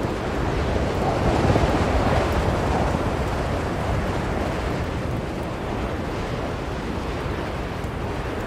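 Blizzard wind blowing in a steady rush, with a gust that swells about a second in and eases off again.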